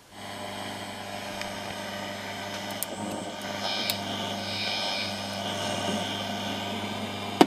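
Homemade long-wave TRF radio receiver playing through its speaker: a steady noisy hiss and buzz with a strong mains-like hum and a few crackles of static, no clear programme audible under the noise. It comes on suddenly at the start and cuts off with a click near the end.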